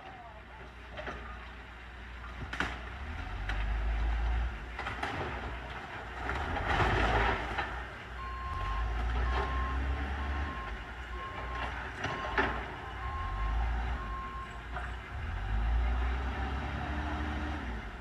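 A backhoe's diesel engine rumbles in repeated surges, with a few sharp knocks. About halfway through, its reversing alarm beeps steadily, roughly once every three-quarters of a second, for several seconds.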